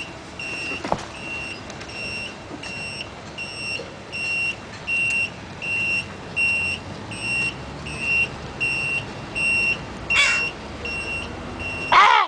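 Truck's door-open warning chime beeping steadily, about two beeps a second, because the driver's door is standing open. A bird gives a harsh call twice near the end, the second louder.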